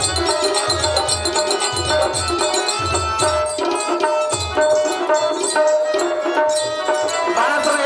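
Live accompaniment music: regular drum strokes over steady held tones, the drumming dropping away about halfway through while the held tones carry on.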